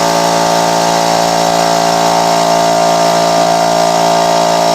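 Air compressor running steadily to inflate a tyre and seat its bead: a loud, even machine hum with several fixed tones and no change in pitch.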